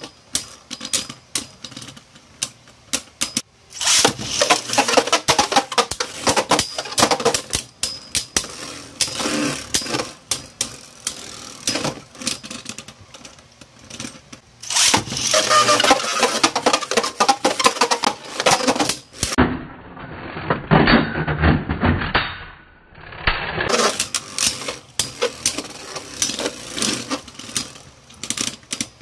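Two Beyblade spinning tops, Divine Belial and Ultimate Valkyrie, whirring and clashing in a clear plastic stadium: a running clatter of plastic-and-metal clicks and knocks, with stretches of dense, rapid collisions. Near the middle there is a duller stretch of a few seconds where the sound loses its top end.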